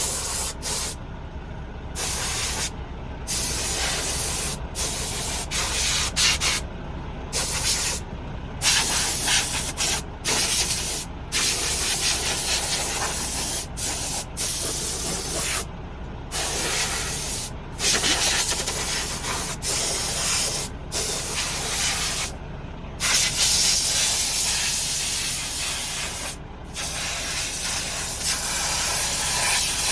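Repeated bursts of hissing spray, each lasting from about a second to several seconds, with short breaks between.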